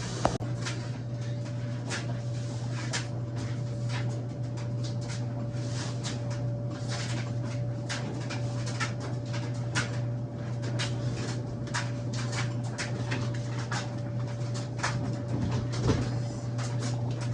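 Irregular light clicks and knocks, many in quick succession, over a steady low hum and a faint steady tone.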